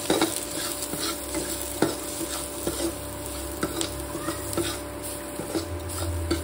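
A steel spoon scrapes and clinks against a metal pan again and again as onions are stirred, over the steady sizzle of the onions frying in mustard oil with turmeric and salt.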